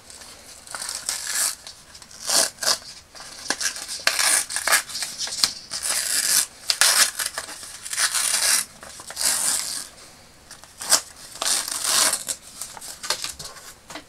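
A paper pattern held on with double-sided tape being peeled off thin black fabric: repeated short rustling, tearing pulls of paper and tape, with a few sharp crackles.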